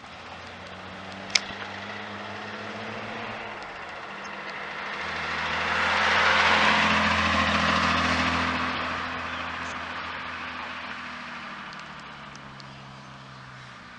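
A 1972 Nissan Skyline 2000GT-X's twin-SU-carburetted straight-six, running through a dual exhaust, as the car drives past: the engine note grows louder as it approaches, is loudest about six to eight seconds in, then fades as the car drives away. A single sharp click sounds about a second and a half in.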